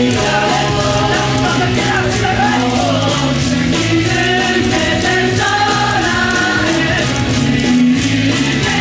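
Yosakoi dance music playing loudly, a sung melody over a steady rhythmic backing track.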